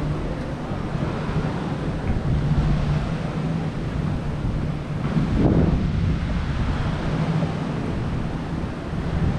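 Wind buffeting the microphone over the wash of ocean surf, with a brief louder swell about halfway through.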